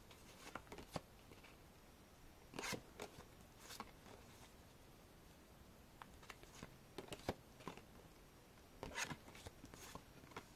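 Faint papery scrapes and clicks of stiff metallic-finish photo postcards being slid off a stack and moved to the back one at a time, in short scattered groups with quiet gaps between.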